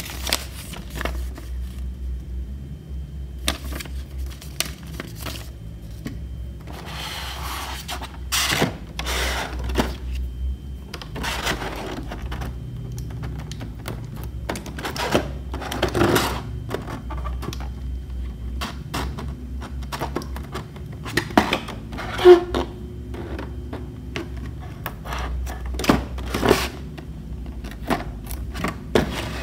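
Hands handling a clear plastic blister box: scattered sharp clicks, taps and scrapes of stiff plastic, with a folding knife blade slitting the box's tape seals, and a stretch of rustling about seven seconds in. A low steady hum runs underneath.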